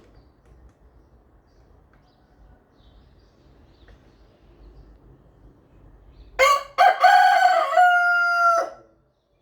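A rooster crows once, about six seconds in: one loud cock-a-doodle-doo of a little over two seconds, with a brief break near its start, ending on a held note. Before it there is only faint background noise.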